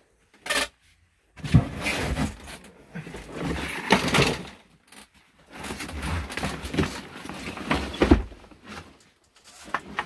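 A plastic shop-vacuum canister full of sandy dirt being handled and shifted: irregular scraping, rustling and plastic knocks, with a short sharp click about half a second in.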